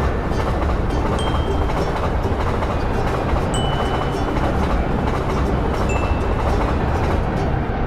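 Electric train running past, a steady dense rumble of wheels and motors, with a few brief high thin tones scattered through it.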